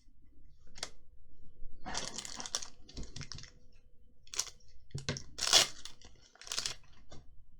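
Trading cards and booster-pack wrappers being handled: a string of short, sharp rustles and flicks as cards slide against each other and are turned over.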